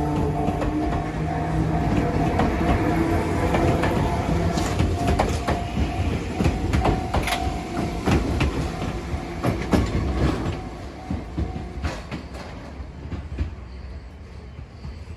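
Enoden electric train passing over a level crossing, its wheels clicking over the rail joints, getting quieter in the last few seconds as it moves away.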